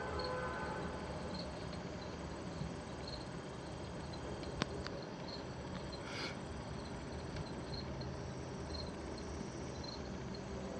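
A cricket chirping in short, regular chirps over a steady background hum, with one sharp click about halfway through.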